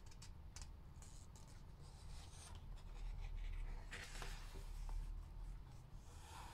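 Pages of a picture book being turned by hand: faint paper rustling and sliding, loudest about midway through.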